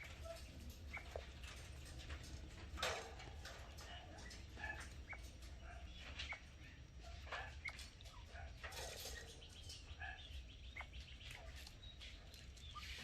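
Quails feeding from a hand, giving scattered short, soft chirps and peeps, with a few sharp clicks, over a faint steady low rumble.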